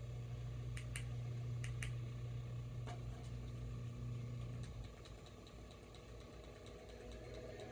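Steady low electrical hum that drops away about two-thirds of the way through. Five sharp clicks come in the first three seconds, and faint quick ticks, about three a second, follow in the second half.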